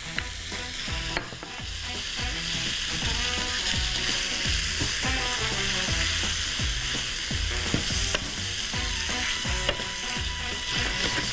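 Chunks of curried meat sizzling in a hot frying pan while a wooden spoon stirs and scrapes them around; the sizzle grows louder about a second in.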